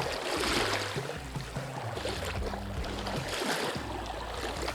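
River water flowing past, a steady rushing that swells and eases a little, with a low hum underneath.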